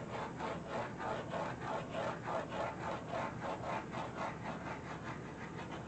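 A dog panting rapidly and steadily, about three to four breaths a second.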